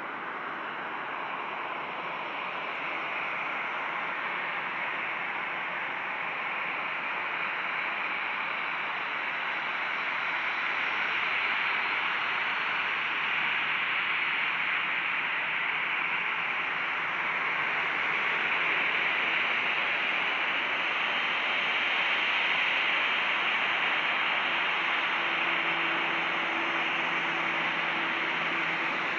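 Boeing 737-800's CFM56-7B jet engines running at taxi power: a steady hiss that grows slowly louder as the jet taxis closer, with a faint low hum joining near the end.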